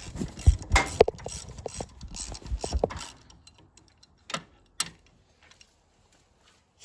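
Ratchet wrench clicking in quick strokes for about three seconds as bolts on a tractor engine are worked loose, then two sharp metal clinks.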